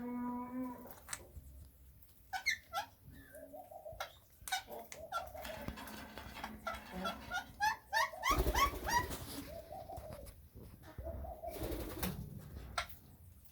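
Caged birds calling: many short chirps and calls in irregular bursts, opening with a held low note. Two brief rustling noises come a little past the middle and again near the end.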